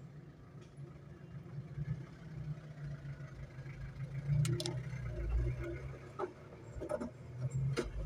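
A steady low hum, with a handful of small sharp clicks from car wiring and its connectors being handled, starting about halfway through.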